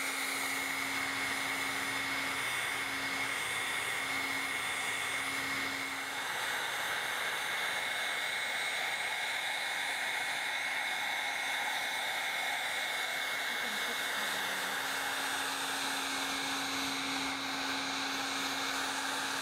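Heat gun on a low setting blowing steadily, an even airy rush with a constant hum and a high whine, as hot air is passed over freshly poured lip balm tops to smooth and glaze them.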